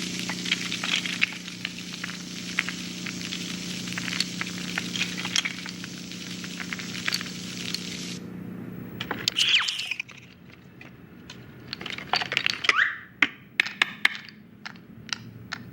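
A steady crackling hiss with a low hum and many sharp clicks, which cuts off suddenly about eight seconds in. After that come scattered clicks, knocks and a few short squeaks.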